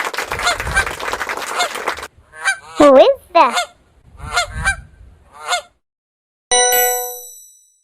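Geese honking: a noisy flock chatter, then a run of loud, separate honks. A bright chime rings and fades near the end.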